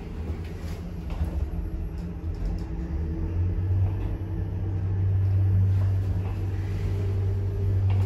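2006 Fujitec hydraulic lift running, heard from inside the car: a steady low hum and rumble that grows stronger about three and a half seconds in and then holds.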